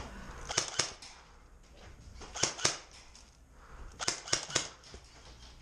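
Airsoft gunfire: three short bursts of sharp snapping shots, a few shots in each, about a second and a half to two seconds apart.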